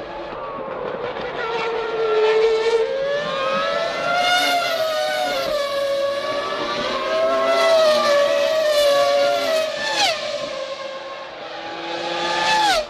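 1999 Formula One cars' V10 engines at high revs, several at once, their pitch wavering as they change speed. Twice, near the end, the pitch drops sharply as a car passes by.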